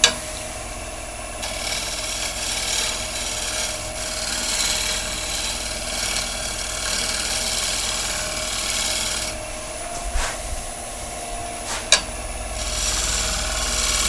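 Bowl gouge making a gentle drag cut on the outside of a spinning wooden bowl on a lathe: a steady scraping of the tool edge shaving the wood. The cut breaks off about nine seconds in and starts again near the end, with a sharp click about twelve seconds in.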